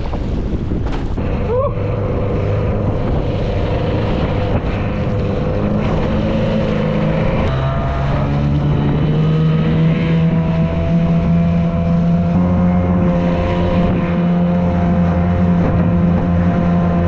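Small 4-horsepower longtail boat motor running under way, steady apart from a shift in pitch about halfway through, with wind on the microphone and water splashing off the bow.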